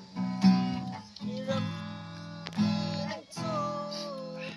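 Acoustic guitar strummed in a steady rhythm while a man sings along in long held notes that bend in pitch.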